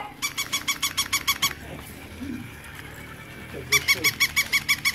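Battery-operated toy puppy yapping: two quick runs of high, even yips, about seven a second, one near the start and one near the end.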